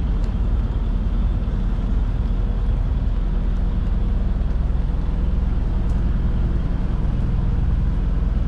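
Steady low rumble of the catamaran's engine, running steadily, mixed with wind buffeting the microphone.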